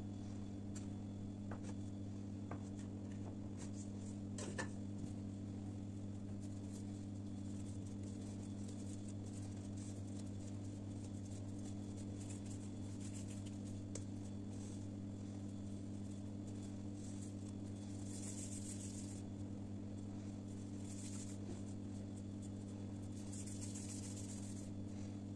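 Quiet hand-work with bread dough over a steady low hum: faint taps as a knife cuts the dough on the counter, one short knock about four and a half seconds in, and soft rubbing bursts later on as dough pieces are rolled into balls between the palms.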